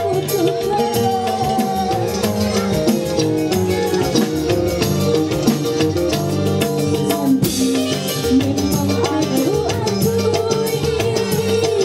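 Live dangdut band playing at a steady, loud level: a keyboard melody over drums and percussion, with a woman singing into a microphone for part of the time.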